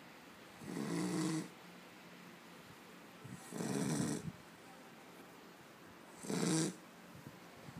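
A sleeping pet snoring: three snores about three seconds apart, each a short low buzz lasting under a second, with quiet breathing between.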